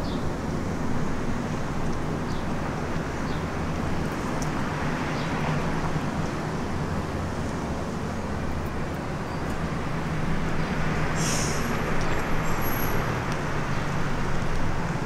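City street traffic noise: a steady low hum of vehicle engines and passing tyres, with a short hiss about eleven seconds in.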